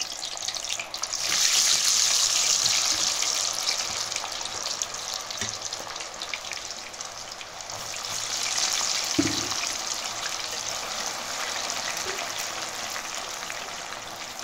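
Par-boiled potato fries going into hot oil in a steel pot: the oil breaks into a loud sizzle about a second in, then eases. The sizzle swells again about two-thirds of the way through as more fries are lowered in with a wire spider, with a short knock of the utensil on the pot.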